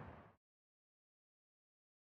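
Near silence: the tail of a fading sound dies away within the first half second, then dead digital silence.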